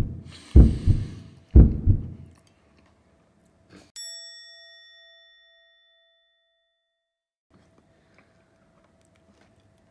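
Heartbeat sound effect, loud low thuds about once a second, stopping after about two seconds. About four seconds in a single bell ding rings out and fades over about three seconds, followed by faint room hum.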